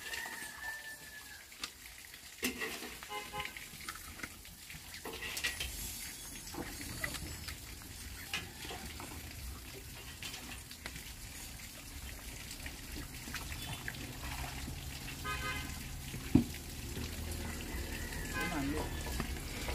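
Slaughtered chickens being scalded in a pot of hot water over a wood fire and stirred with a stick to loosen the feathers for plucking: crackling and sloshing, with a sharp knock about 16 seconds in.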